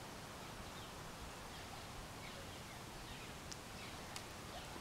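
Faint steady outdoor hiss with birds chirping here and there in short, falling notes, and a couple of small ticks near the end.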